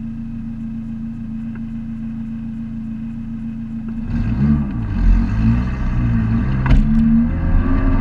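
A Neon race car's four-cylinder engine idling steadily, heard from inside the cabin; about four seconds in it revs up and down and then pulls hard as the car launches, with a sharp click near the end.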